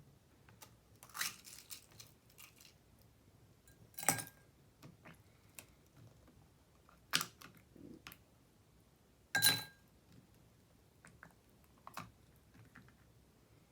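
Ice cubes put into a glass one at a time: four sharp clinks a few seconds apart, the last the loudest with a short glassy ring, and faint small clicks and crackles between.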